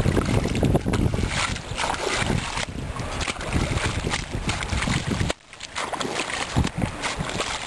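Metal hoe chopping and scraping into wet mud and shallow muddy water, with irregular squelches and splashes, over wind buffeting the microphone.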